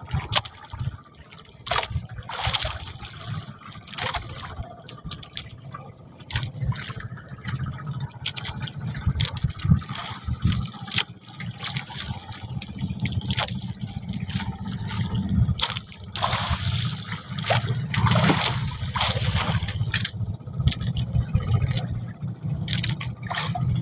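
Water splashing and trickling around a small fishing boat, with irregular knocks and clatters.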